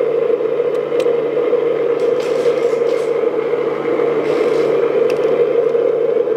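Steady motor whir from the RC hydraulic excavator, with a few faint small clicks as the bucket's hydraulic hose fittings are handled.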